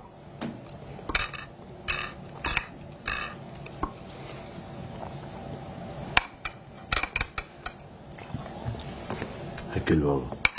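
Tableware clinking at a meal: small glass tea cups, saucers and cutlery tapping on plates and a glass-topped table. The taps are scattered and short, with a quick run of them in the first three seconds and another cluster about six to seven seconds in.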